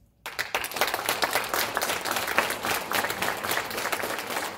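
Audience applauding, breaking out suddenly just after the start into dense, steady clapping.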